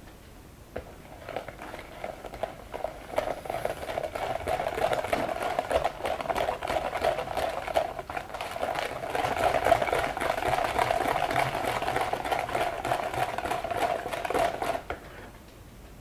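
Hand whisk beating a thick egg-yolk, sugar and flour mixture in a plastic mixing bowl: a fast, steady scraping rattle that starts about a second in and stops suddenly about a second before the end.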